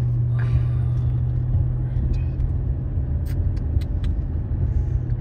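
A car's engine and road noise heard from inside the cabin while driving, a steady low hum, with a few faint ticks in the middle.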